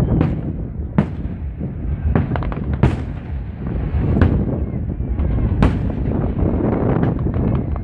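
Fireworks display: aerial shells bursting in sharp bangs about once a second, with a quick run of crackles a little over two seconds in, over a continuous low rumble of booms.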